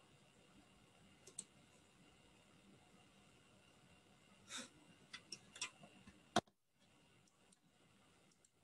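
Near silence in a small room, with a few faint clicks of a computer mouse, a short hiss like a breath about four and a half seconds in, and one sharper click a couple of seconds later.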